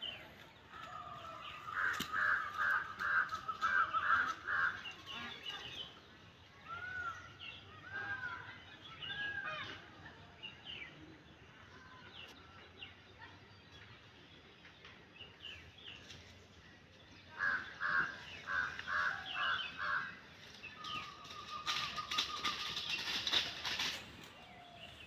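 Birds calling: two quick runs of repeated notes, about two seconds in and again about seventeen seconds in, with a few arched whistled notes and higher chirps between them. A burst of rustling noise comes near the end.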